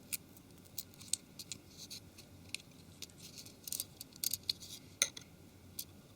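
Faint, irregular small clicks and ticks of tools and small plastic and metal phone parts being handled during a mobile phone teardown, several a second in places, with a sharper click about five seconds in.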